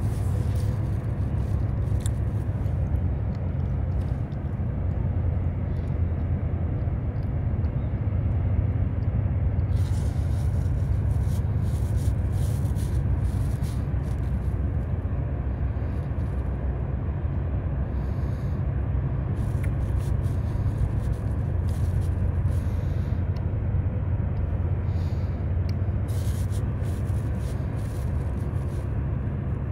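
Steady low rumble of a tugboat's diesel engines working under tow, with scattered faint clicks through the second half.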